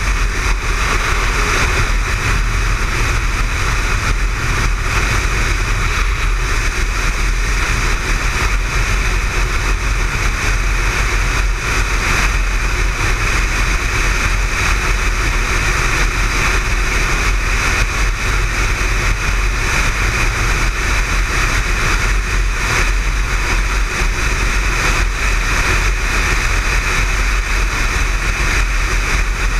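Motorcycle cruising steadily at highway speed, heard from a camera mounted on the bike: a constant rush of wind and road noise over the engine, unchanging throughout.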